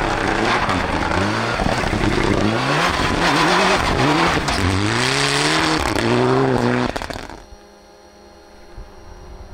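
Mitsubishi Lancer Evolution rally car's turbocharged four-cylinder engine at full throttle, the revs climbing and dropping again about six times through gear changes and lifts. About seven seconds in it cuts off suddenly, leaving a much quieter steady engine hum.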